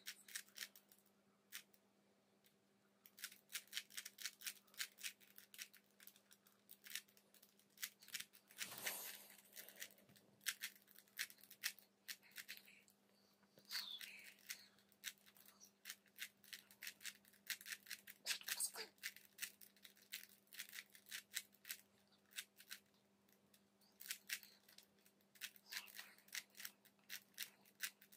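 A plastic 3x3 Rubik's Cube being turned by hand: quick runs of sharp clicks and clacks as its layers are twisted, broken by short pauses.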